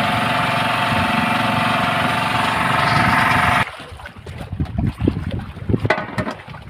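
Small portable generator engine running steadily, a constant hum with an even tone. About three and a half seconds in it cuts off abruptly, giving way to quieter irregular knocks and bumps of handling on deck with wind noise.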